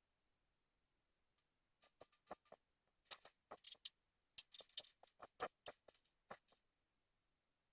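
Irregular sharp clicks and crackles from aluminum brazing work on a door skin, about a dozen spread over four seconds, starting about two seconds in, with nothing steady beneath them.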